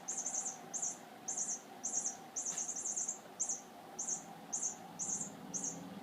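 A spinning ceiling fan with a cat toy strung from it, giving short high-pitched chirps that repeat about twice a second over a faint steady hum.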